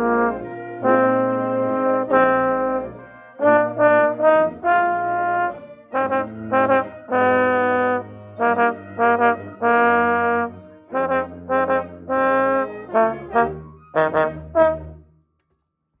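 Tenor trombone playing a melodic phrase of short and held notes, with lower held notes from another instrument beneath it. The phrase ends on a final note about a second before the end and stops.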